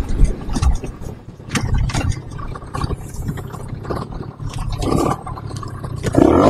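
1992 Aprilia Classic 50 two-stroke moped riding slowly: uneven low rumble of engine and road with a few scattered knocks, no steady engine tone standing out.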